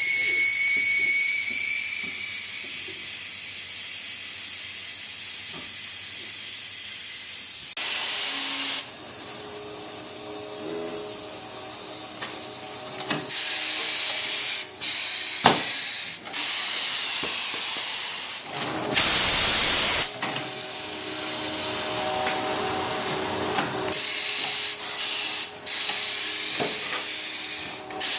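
Compressed air hissing in stretches that start and stop abruptly, as from tire-shop air tools and air lines. There is a sharp knock a little past halfway, and about two-thirds through a louder blast of air lasting about a second.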